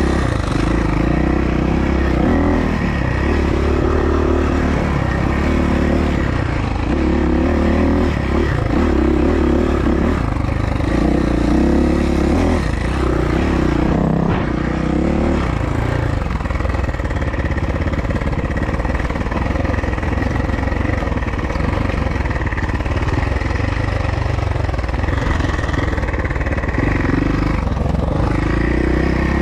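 Suzuki motocross bike engine running hard while being ridden, the revs rising and falling every second or two through the first half, then holding steadier.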